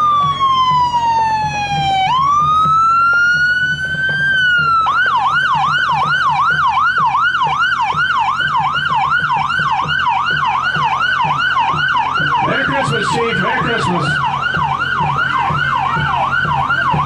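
Police car siren on a parade-leading police SUV: a slow wail, first falling and then rising in pitch, that switches about five seconds in to a fast yelp of about two sweeps a second.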